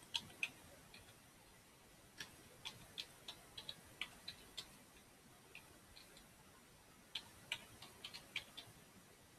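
Computer keyboard keys clicking in three short, irregular bursts of typing, separated by pauses.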